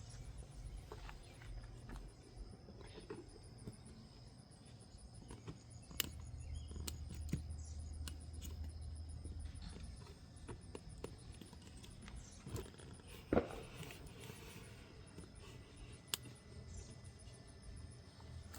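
Scattered faint clicks and knocks of hands working the plastic electrical connector off a VVT solenoid, pressing its lock tab, with a sharper knock a little past the middle. A faint steady high tone and low hum run underneath.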